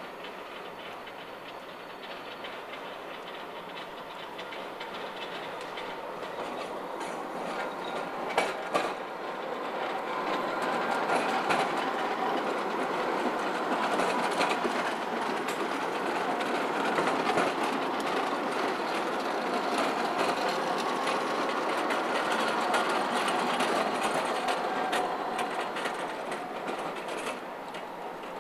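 Tram passing close by on grass-laid track: the rumble of wheels on rail grows, with two sharp clacks about eight seconds in, stays loud while the cars go past, then fades near the end.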